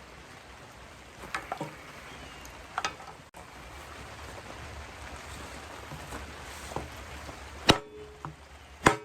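Sharp knocks on a foam-core composite panel as it is struck in an attempt to damage it: a few lighter knocks in the first three seconds, then two loud strikes near the end, each followed by a short ringing tone. The panel holds up to the blows.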